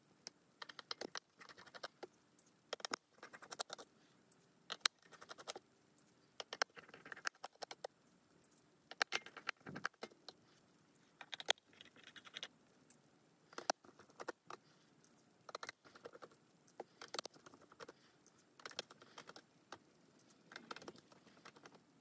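Faint, irregular small clicks and ticks of a precision screwdriver and tiny screws being worked out of a Nintendo Switch Lite's internal frame.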